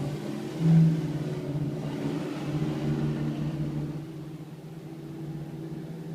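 Automatic car wash machine running with a steady motor hum, briefly louder about a second in.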